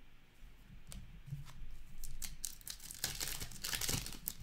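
Foil wrapper of a 2020-21 Upper Deck Extended Series hockey card pack being torn open by hand, crinkling and crackling. The crackling builds from about halfway in and is loudest in the last second and a half.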